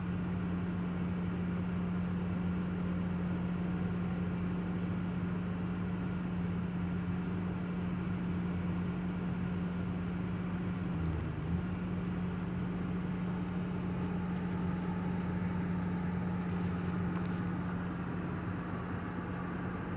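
An engine running steadily at a constant high speed, with a brief dip in pitch about eleven seconds in.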